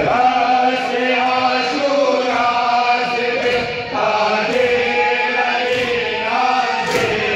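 Men chanting a noha, a Shia mourning lament, in long held melodic phrases.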